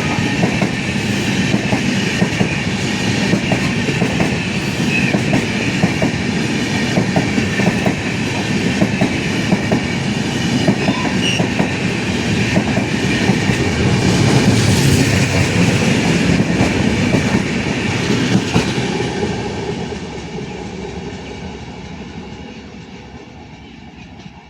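Fast Indian Railways train passing close by, its wheels clattering rapidly over the rail joints. The sound fades away over the last few seconds as the train leaves.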